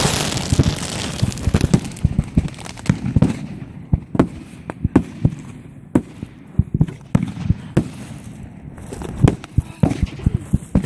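A box of consumer fireworks set off by wind-blown sparks, going off uncontrolled. A loud rush fades over the first couple of seconds, then an irregular string of sharp firecracker pops and cracks follows, several a second.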